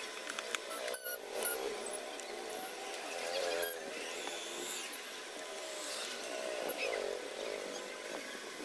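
Background voices, with a few sharp clicks about one second in and again near the middle.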